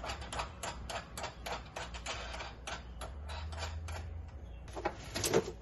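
Rapid light clicking, about five clicks a second, from hardware being worked by hand at a UTV harness mount. The clicking stops about four seconds in, and a short louder sound comes near the end.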